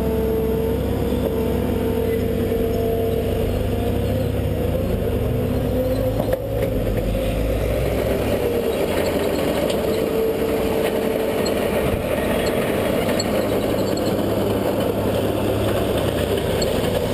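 Excavator's diesel engine running steadily while the boom digs and swings, with a steady whine over the low engine drone. A single knock about six seconds in.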